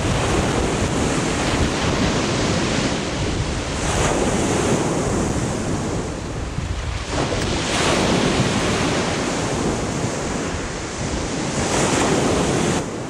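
Sea surf breaking and washing on a shingle beach, swelling about every four seconds, with wind buffeting the microphone.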